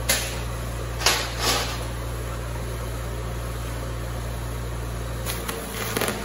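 Stick welding arc struck near the end with a razor blade clamped in the electrode holder as an improvised rod; the thin blade is consumed almost instantly. Before it, a steady hum and a few brief knocks and rustles in the first two seconds.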